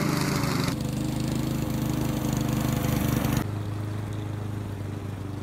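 Gas lawn mower engine running steadily as the unmanned mower rolls away, getting quieter in two abrupt steps.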